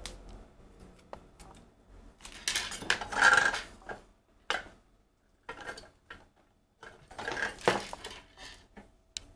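Hard plastic parts of a Penn Plax turtle basking pier clicking and clattering as they are handled and fitted together, in scattered clicks and a few short clattering bursts.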